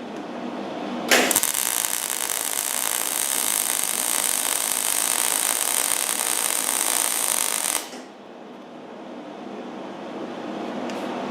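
Millermatic 90 MIG welder arc crackling steadily while laying a weld bead. It starts suddenly about a second in and cuts off abruptly near the end, with a quieter steady hum on either side.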